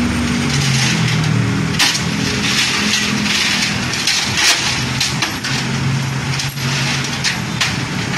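Steel chains rattling and clanking as they are pulled across a flatbed tow truck's deck, with many short metallic clinks, over an engine idling steadily.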